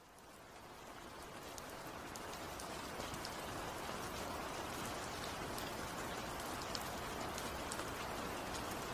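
Steady rain falling, with scattered drop ticks. It fades in from silence over the first few seconds and then holds steady.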